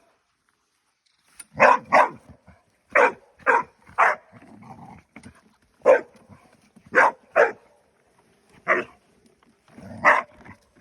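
A dog barking, about ten short, sharp barks, often in quick pairs, starting after a second or so of quiet.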